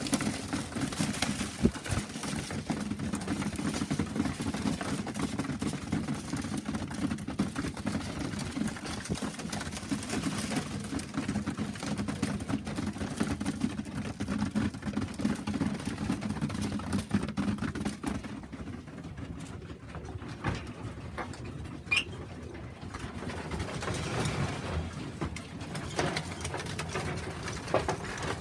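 Pigeons cooing inside a loft, a dense low cooing that thins out about two-thirds of the way through, with a few light clicks and one short high chirp near the end.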